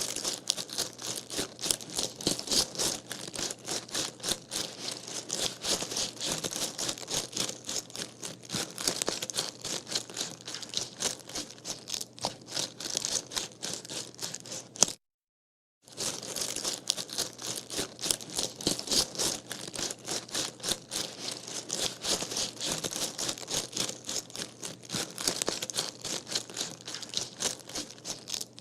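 Running footsteps on gravel: a quick, steady run of crunching footfalls. It breaks off briefly about halfway, then carries on.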